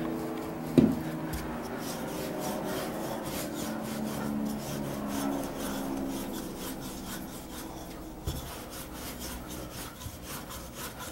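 Wooden rolling pin rolling back and forth over puff pastry dough on a floured table: a steady rubbing. A sharp knock comes about a second in, and a softer one near the end.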